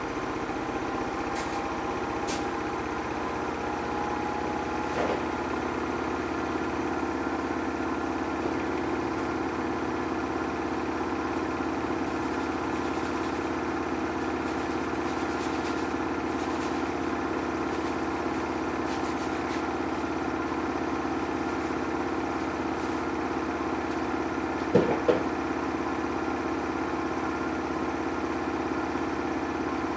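Samsung washing machine running a colour cycle with pre-wash: a steady motor hum as the drum turns. Two sharp knocks come close together about 25 seconds in.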